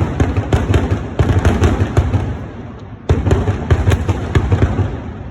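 Festa fireworks: a rapid barrage of sharp bangs, several a second, that thins out about two seconds in and then starts again loudly just after three seconds.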